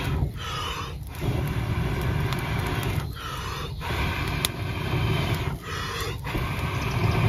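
A person blowing long, steady breaths into a smoking tinder bundle and kindling to coax the embers into flame. Each blow lasts about two seconds, with a quick breath in between, three times.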